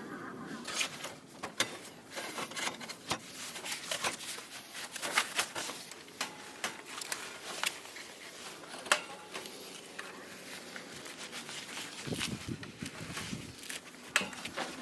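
Irregular light clicks and knocks, a few of them sharper and louder, as of small objects being handled.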